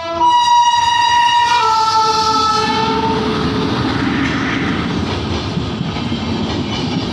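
WAP7 electric locomotive's air horn blaring for about three seconds, its pitch dropping about one and a half seconds in. The horn then gives way to the rumble and clatter of the train's wheels running over the rails.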